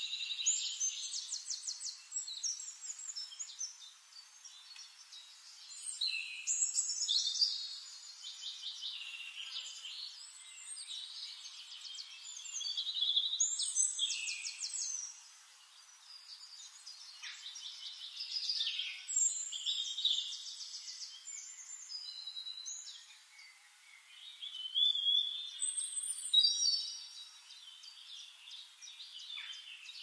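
Songbirds calling: high-pitched chirps and fast, buzzy trills in overlapping phrases. The louder bursts come near the start, at about a quarter, near the middle and late on, with quieter chirping between.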